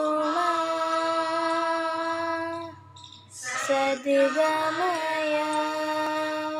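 A girl singing a prayer solo in long, held notes. There is a brief breath pause about three seconds in, then the melody moves and settles on another long held note.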